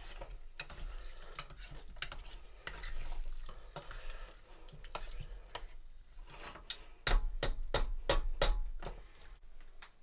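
A spoon stirring and scraping food in a small stainless steel pot on a portable gas stove, with scattered clinks against the metal. A little past seven seconds in comes a quick run of about seven sharper, louder clacks of the spoon against the pot.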